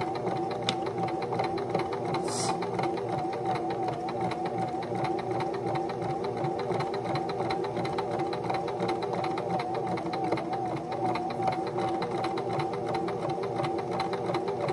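Electric domestic sewing machine running steadily at an even speed, stitching a seam in grey knit fabric, its needle making rapid, regular strokes.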